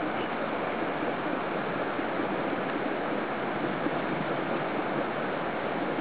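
Strong wind blowing steadily: an even, unbroken rushing noise.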